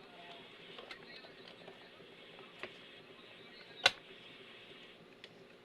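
A few light clicks of small hard objects being handled, with one sharp click about four seconds in, over a faint steady hiss.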